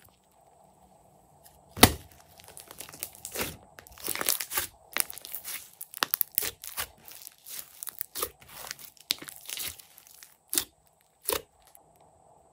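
Thick slime squeezed and pulled apart by hand, giving a run of sticky crackles and sharp pops. The loudest pop comes about two seconds in, and the crackling stops shortly before the end.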